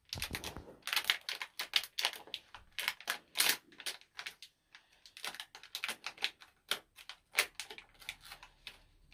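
Pikmi Pops toy's plastic wrapper crinkling and crackling in irregular bursts as a child tears and pulls it open by hand.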